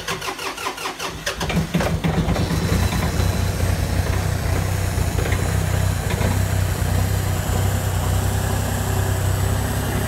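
John Deere 2520 compact tractor's three-cylinder diesel cranking on the starter for a second or two, then catching and settling into a steady idle. It is a cold start at about 19 °F, after the glow plugs were cycled three times.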